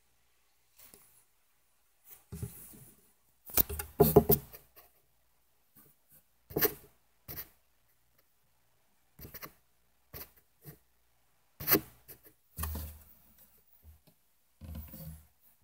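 Irregular handling noise: short clicks, knocks and rustles with a few dull low bumps, as the recording device is moved close against the sticks of a snake enclosure. The loudest cluster comes about four seconds in, with another sharp knock near twelve seconds.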